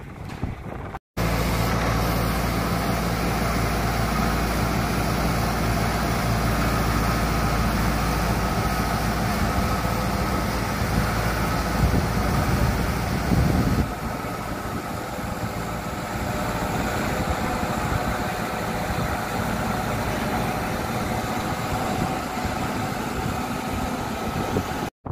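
Tractor engine running steadily while it powers a Kuhn Euromix I vertical feed mixer wagon unloading chopped grass feed, with the wagon's machinery noise on top. The engine's low note drops back about halfway through.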